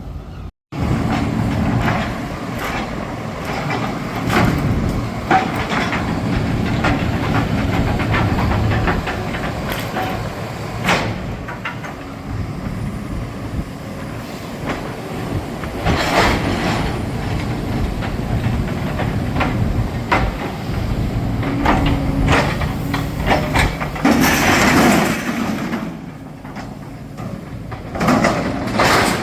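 Demolition excavator running, with repeated clattering and crunching of broken masonry and debris.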